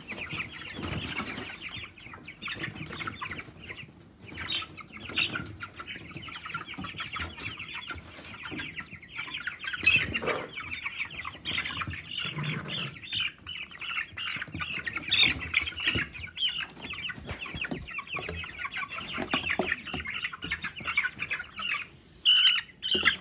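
A flock of three-week-old Cornish Cross broiler chicks peeping continuously, with wing flapping and scuffling in the bedding as they are caught by hand.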